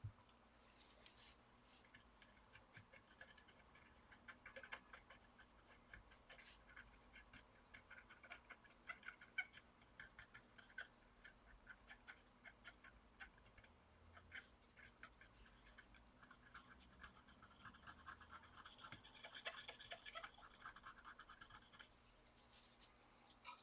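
Faint scratching with many small ticks, from hand tools working on a laptop motherboard while the solder area is cleaned.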